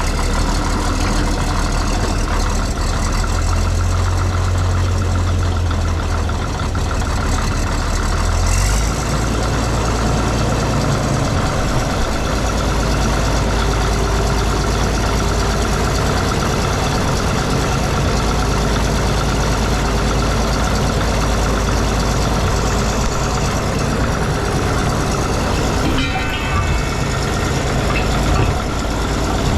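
Large diesel engine of heavy equipment idling steadily, its low hum shifting slightly about nine seconds in, with a brief knock near the end.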